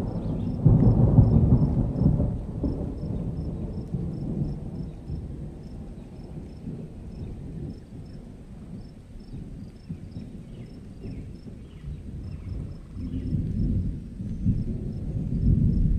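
Thunder rumbling, loudest over the first few seconds, dying down, then rolling in again near the end. A faint high chirp repeats about three times a second throughout.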